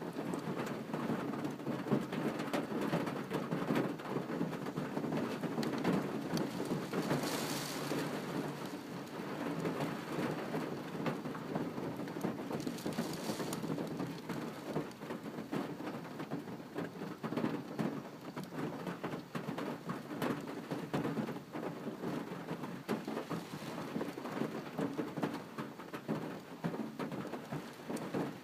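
Storm of strong wind and rain: a dense, steady rushing with fine pattering throughout, swelling briefly into a higher hiss about 7 and 13 seconds in.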